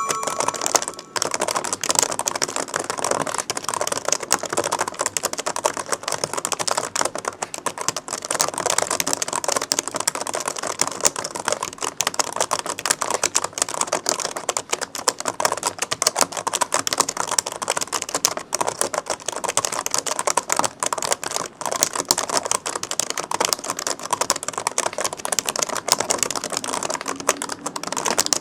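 Continuous fast typing on an older Sony Vaio laptop keyboard: a dense, irregular run of key clicks.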